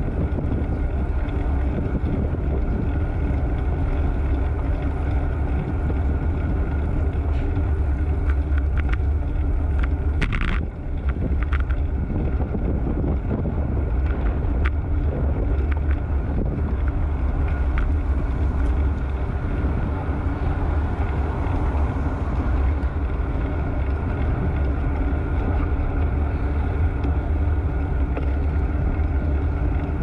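Steady wind rumble on a handlebar-mounted GoPro's microphone while riding a road bike, mixed with road noise, and a short burst of noise about ten seconds in.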